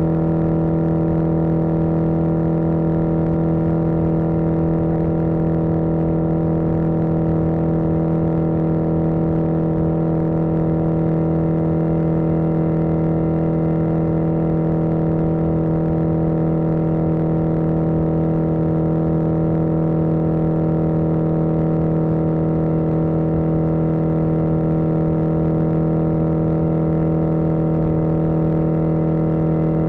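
1981 Yamaha XJ650 Maxim's air-cooled inline-four engine running at a constant steady pitch, held at an even speed while riding, with a low fluttering rumble underneath.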